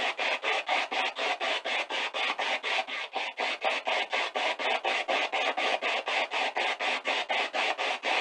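Spirit box sweeping rapidly through radio stations: an even chop of static bursts, about six a second, with no clear words coming through.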